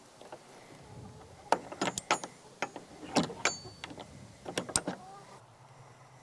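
A run of sharp knocks and clatters, some with a brief metallic ring, from about a second and a half in until near the five-second mark.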